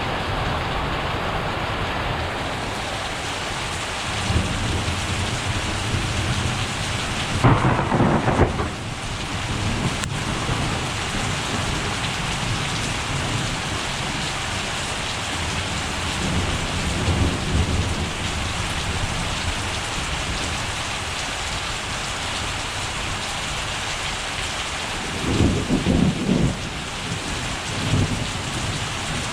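Steady rain with thunder rumbling several times. The loudest crack comes about eight seconds in, and another strong roll comes near the end.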